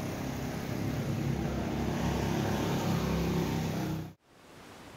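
A motor vehicle's engine running close by, a steady low rumble that cuts off abruptly about four seconds in.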